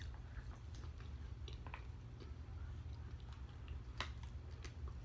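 A person chewing food with soft wet mouth smacks and small clicks, over a low steady hum, with one sharper click about four seconds in.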